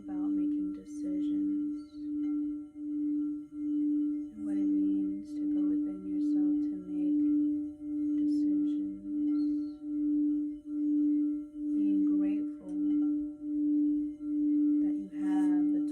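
Singing bowl sounding one steady low tone that swells and fades in an even pulse, about three pulses every two seconds.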